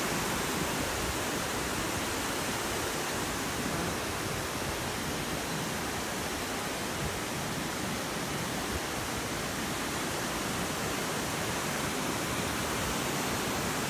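Steady rushing of a mountain stream running fast over rocks.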